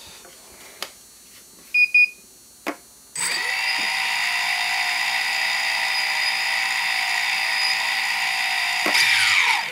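Two short electronic beeps, then the DJI Phantom 2 Vision's brushless motors start with their propellers off and spin unloaded, giving a steady whine of several tones. Near the end the motors stop and the whine falls away in pitch.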